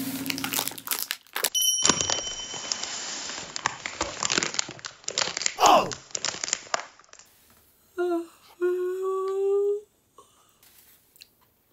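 Clear plastic wrapper crinkling and tearing as hands open it around a cream puff. Then a voice hums two notes, a short one and a longer one rising slightly.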